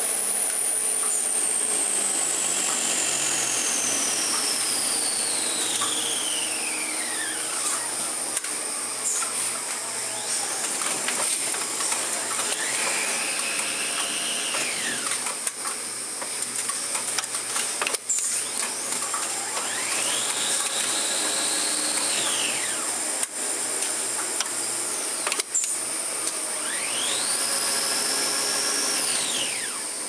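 Film capacitor winding machine spinning. Its motor whine falls slowly in pitch over the first several seconds, then three times rises and falls as the winding spindle speeds up and slows down, over a steady hiss with a few sharp clicks.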